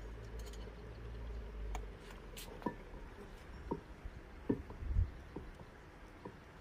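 Wooden stick stirring thick saag in a metal pot, with a few light, irregular knocks of the wood against the pot. A low rumble in the first two seconds.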